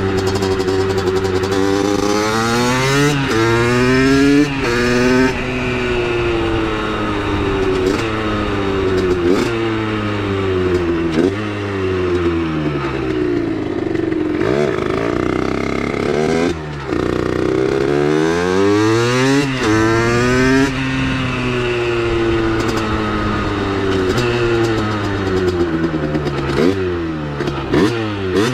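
Two-stroke 70cc supermoto engine (Minarelli AM6 with a DR 70 kit, Giannelli expansion chamber and DBR silencer) under hard acceleration, its pitch climbing up to high revs and then dropping back at each gear change, again and again.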